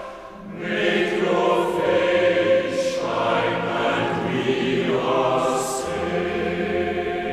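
A choir singing slow, sustained phrases with long-held notes, the sung consonants hissing now and then. The singing drops briefly at the start and then comes back in with the next phrase.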